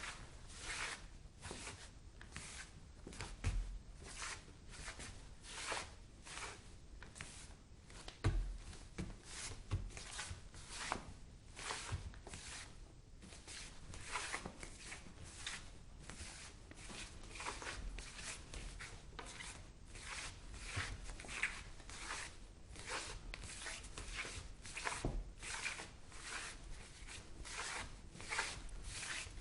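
Bare-foot footsteps, a soft slapping step about twice a second, with an occasional heavier low thud.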